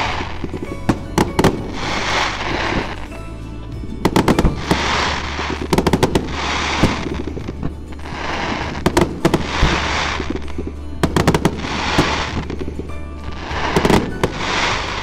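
Aerial fireworks exploding, sharp bangs and reports coming in quick clusters, over background music with a swell about every two seconds.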